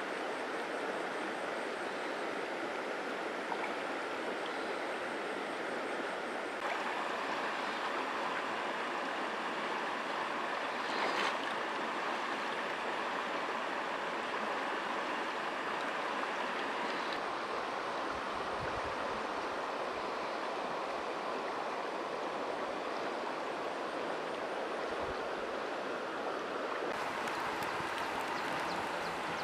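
Steady rushing of a shallow, rocky river's flowing water, with a short louder burst about eleven seconds in.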